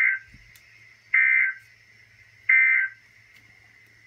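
Three short electronic data bursts, each well under half a second and about a second and a half apart: the SAME digital end-of-message code of a NOAA Weather Radio alert broadcast, marking the end of a severe thunderstorm warning.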